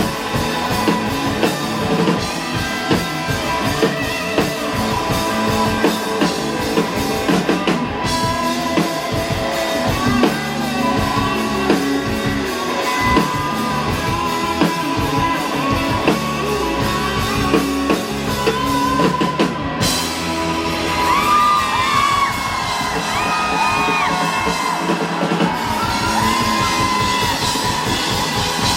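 Rock band playing live: drums, electric guitars and bass, with a wailing lead line coming in during the second half.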